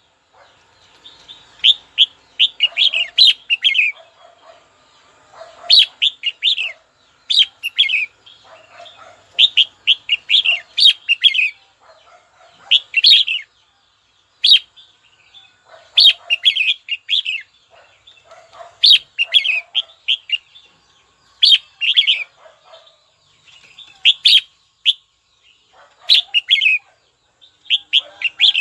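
Red-whiskered bulbul singing: short phrases of quick notes, repeated every second or two.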